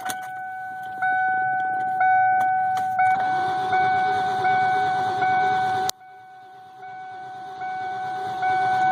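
A 1995 Ford Taurus SHO's engine being cranked by its starter without catching, with one sharp crack about six seconds in and the cranking going on weaker afterwards: a crank-but-no-start condition. A steady high electronic warning tone sounds throughout.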